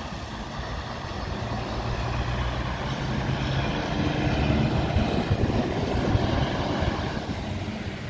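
A road vehicle, likely a truck or van, drives past with engine and tyre noise that builds to a peak mid-way and then fades, while wind buffets the microphone.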